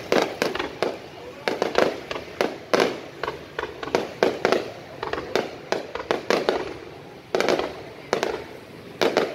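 Aerial fireworks going off in rapid, irregular succession, about two or three sharp bangs a second, each trailing off briefly.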